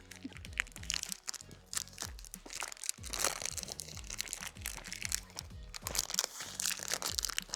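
Background music with a steady bass line, over close crunching and crinkling: a caramel protein bar being eaten from its crinkly wrapper.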